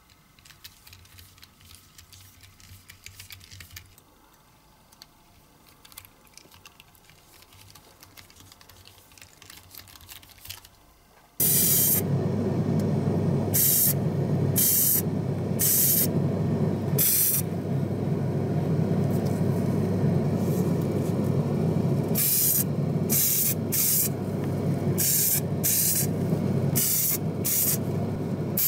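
Faint scratching ticks of a hand pin vise drilling a small die-cast metal part. About eleven seconds in, a loud steady running noise starts, and over it primer is sprayed in about a dozen short hissing bursts.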